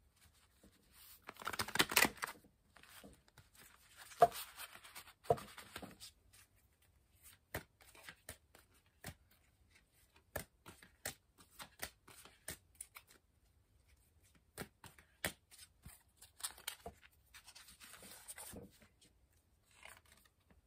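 A tarot deck being shuffled by hand: soft rustling flurries of sliding cards, three times, with many light, sharp card ticks in between.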